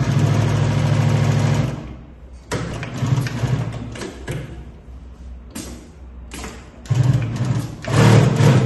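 Mauser Spezial 2645 heavy-duty sewing machine stitching thick material in two runs: one for about the first two seconds and another near the end, with quieter, uneven handling sounds in between. It is running at reduced speed because the maximum foot stroke is engaged.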